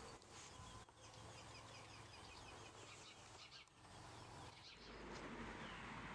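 Faint birds chirping in a quiet outdoor background, with a soft rustling noise rising about five seconds in.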